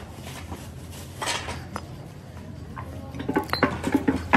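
Steel gearbox parts and hand tools clinking and knocking against each other: a few scattered light clinks, then a quicker run of louder, ringing metal clinks near the end. A steady low hum runs underneath.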